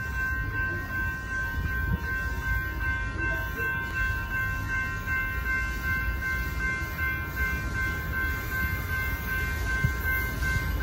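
Amtrak passenger train led by a Siemens Charger diesel locomotive approaching slowly, heard as a steady low rumble. Several steady high tones sound over it throughout.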